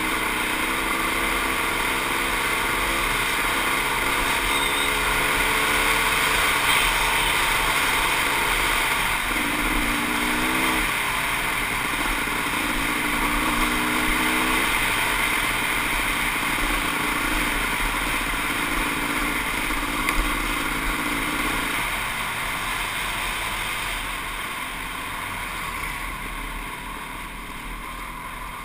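Kawasaki KX500 single-cylinder two-stroke dirt bike engine running under way on a gravel trail, heard from a helmet-mounted camera over a steady rush of wind and road noise. The engine note shifts a few times and gets quieter near the end as the bike eases off.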